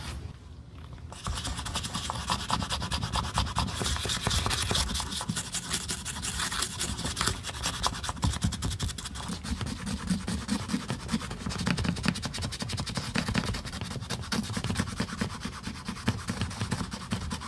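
Toothbrush bristles scrubbing the leather insole of a high-heeled pump in quick, continuous back-and-forth strokes. The scratching starts about a second in.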